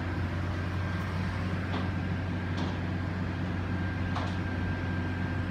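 Garbage truck running steadily: a low mechanical hum with a thin, steady high whine held above it.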